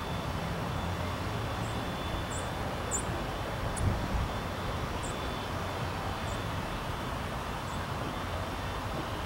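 Steady low outdoor rumble, with a low thud about four seconds in and a scattering of short, high chirps, about eight in six seconds.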